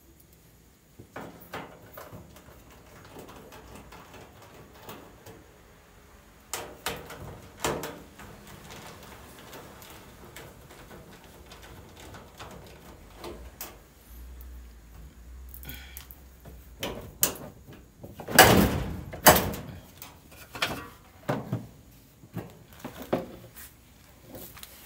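Knocks, clacks and scrapes of the sheet-metal front of a Speed Queen front-load dryer and its parts being handled and taken apart with a screwdriver. The sounds come irregularly, with a louder scraping clatter about three-quarters of the way through.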